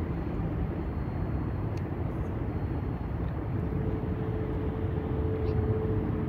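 Steady low rumble of distant city traffic, with a faint steady hum joining about halfway through.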